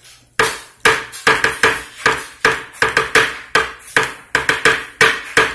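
A metal spoon knocking repeatedly against a plastic mixing tub as peanut butter is scraped off it, a quick run of sharp taps about three a second.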